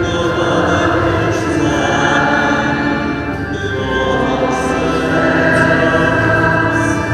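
Church congregation singing the closing hymn of Mass with musical accompaniment, sustained and continuous.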